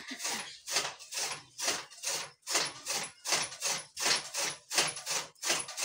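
Hand-turned flywheel chaff cutter (kutti machine) chopping green berseem fodder: a steady rhythm of short swishing cuts, about two to three a second, as the blades slice through each feed of stalks.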